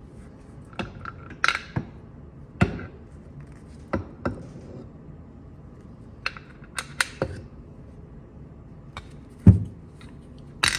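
Irregular metal clinks and knocks of hand tools and parts being handled while taking apart an M21 Muncie four-speed transmission. About a dozen sharp strikes, with a louder knock near the end.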